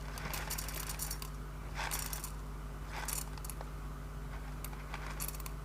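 Whole roasted coffee beans rattling lightly in a few short spells, with small clicks in between, as a 20-gram dose is weighed out.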